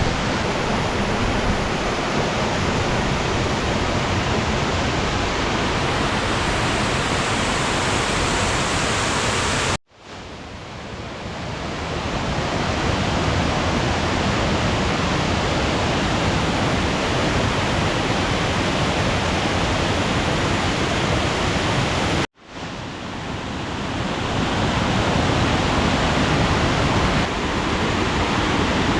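Waterfall in monsoon flow: a steady, loud rush of falling water. It cuts out abruptly twice, about ten and twenty-two seconds in, and fades back up over a second or two each time.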